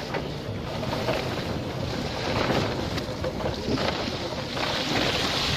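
E-bike tyres running through floodwater on a trail, a steady wash of splashing and spray mixed with wind on the microphone. The hiss grows brighter toward the end.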